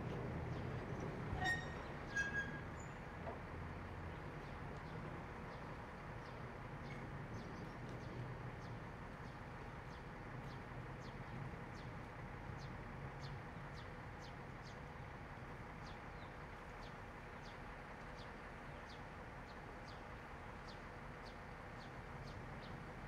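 Low, steady engine hum, with two short, high chirps a second or two in and a faint ticking about twice a second after that.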